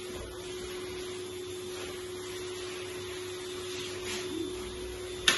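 A small electric motor running with a steady hum, with one sharp click near the end.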